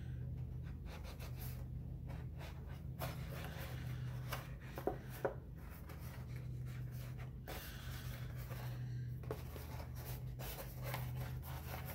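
Fingers rubbing and pressing along the seams of stiff paper cap panels, with scattered rustles and a few small ticks as the paper is handled, over a steady low hum.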